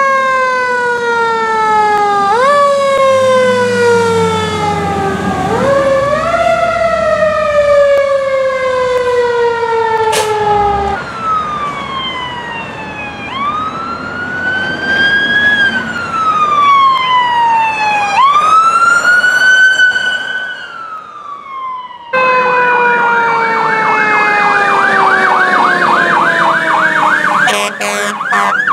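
Emergency-vehicle sirens from passing fire engines and a police car. One siren rises quickly and falls slowly over and over, then a slower rising-and-falling wail plays, and after a cut a falling siren sounds under a fast warbling yelp, with a short horn-like blare near the end.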